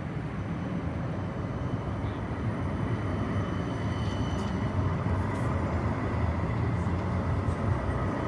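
CAF Urbos 100 tram running in along street track and passing close by as it pulls into the stop, a steady rumble growing louder, with a thin steady high whine over it.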